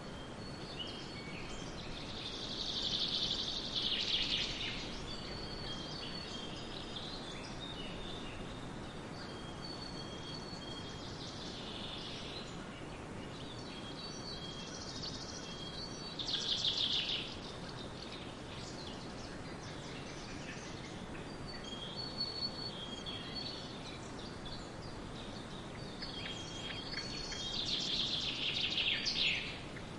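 Wild birds singing in a forest over a steady background hiss, with repeated high, thin notes. Louder trilling songs come in about three seconds in, again midway, and once more near the end.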